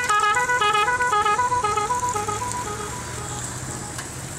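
Musical horn playing a quick tune of short notes stepping up and down, fading away over about three seconds, over a low traffic rumble.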